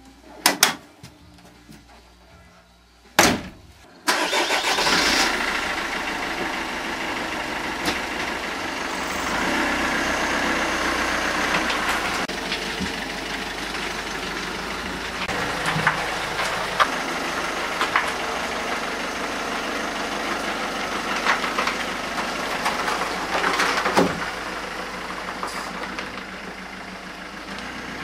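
Two sharp knocks, then about four seconds in the Mercedes-Benz C 220 CDI's common-rail turbodiesel engine starts and runs steadily at idle.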